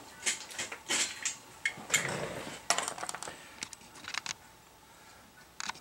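A screwdriver clicking and scraping on the metal parts of an opened laptop hard drive as the glued-down voice-coil magnet is pried at: a quick run of small sharp metallic clicks and scrapes, dying down in the last second or two with a couple of clicks near the end.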